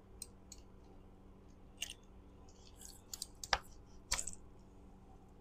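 Scattered small plastic clicks and taps as the parts of a Club Car golf cart forward/reverse switch are handled and fitted back together. The two loudest knocks come about three and a half and four seconds in.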